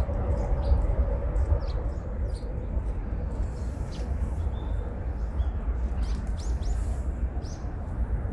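Small birds chirping in short, high calls, scattered and coming more often near the end, over a steady low rumble.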